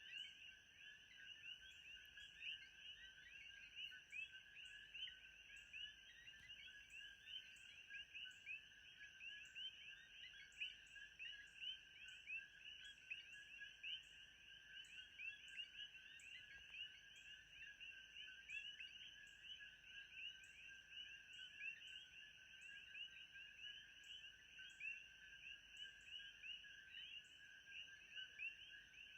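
Faint, continuous ambience of many small animals calling together: a dense chorus of short, rapid chirps, with a thin steady high tone and short regular pips above it.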